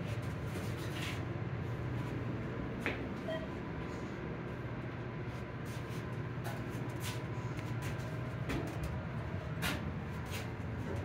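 Elevator car travelling between floors: a steady low hum, with a few light clicks and knocks scattered through it.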